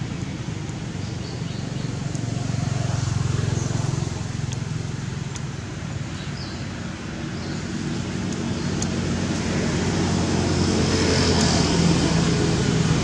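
A steady low rumble that grows louder over the second half, with a few faint high chirps above it.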